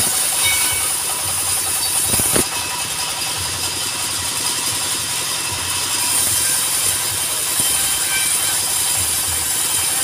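Portable sawmill running under a single-cylinder stationary engine: a steady engine rumble and a high saw hiss. A wooden knock comes about two and a half seconds in, after which the hiss eases, then it comes back around six seconds in.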